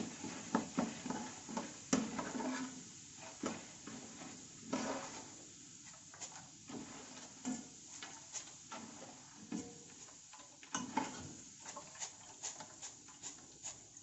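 Metal ladle clinking and scraping irregularly against a pan of hot coconut oil as fried roasted gram is stirred and lifted out, over a faint sizzle of frying.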